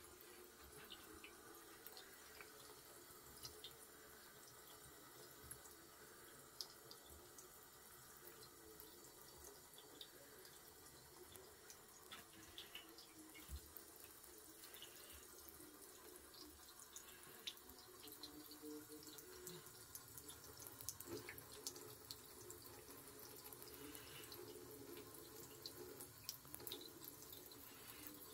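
Bathroom sink tap running faintly in a thin stream into the basin, with scattered small splashes and ticks of water.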